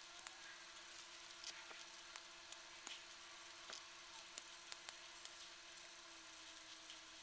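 Near silence: faint, scattered light clicks of a hand tool working against metal, over a faint steady hum.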